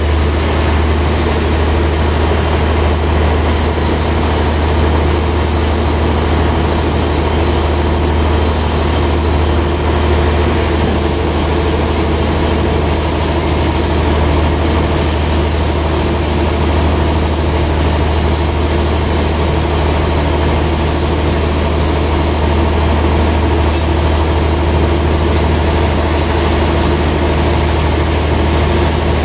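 Band sawmill's machinery running steadily with a deep, unchanging hum.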